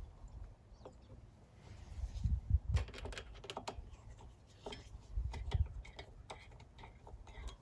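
Scattered small clicks and taps of hands working at the carburetor's float-bowl drain on an Onan generator, handling a tool and a clear plastic drain hose, with a few dull low bumps.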